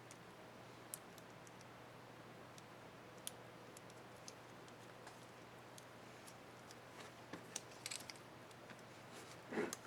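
Scattered small plastic clicks from a laptop keycap and its retainer clips being handled, with a cluster of clicks about eight seconds in and a louder knock near the end. A faint steady hum runs underneath.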